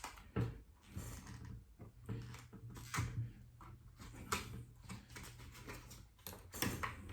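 Scattered light clicks, taps and scrapes of plastic prying cards and small tools working against an iPad Mini's glass and frame while the cracked screen is pried off, over a steady low hum.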